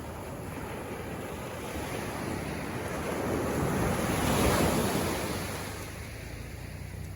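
Ocean surf washing on a beach, one wave swelling up about four seconds in and then easing off, with some wind on the microphone.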